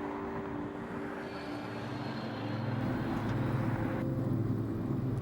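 A vehicle engine running with a steady hum, growing louder and deeper about halfway through.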